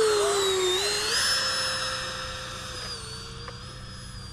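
Electric ducted fan of a Habu 70mm RC jet at full throttle on its take-off run: a high whine over a lower hum. The pitch steps up slightly about a second in, and the sound fades steadily as the jet moves away.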